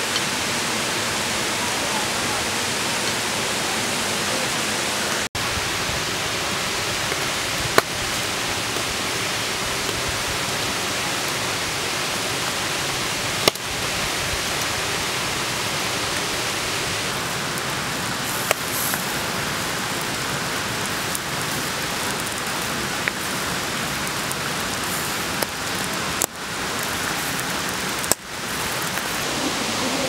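Steady rush of flowing river water, with a few brief clicks along the way.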